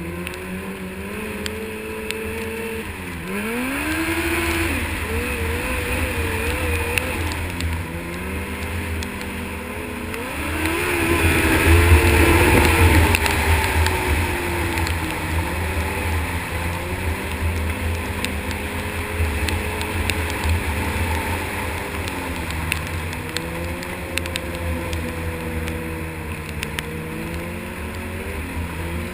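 Snowmobile engine running under way, its pitch falling and climbing again and again as the throttle is eased and opened, with the loudest surge near the middle. A steady rush of wind and track noise runs underneath.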